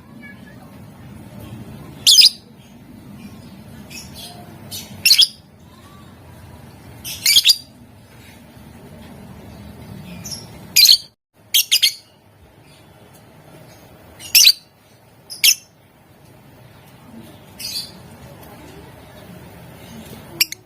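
Lovebird giving short, shrill squawking calls, about a dozen, spaced one to three seconds apart, some in quick pairs, over a steady low background noise.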